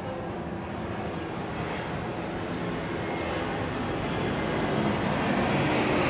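A steady, engine-like drone that grows gradually louder.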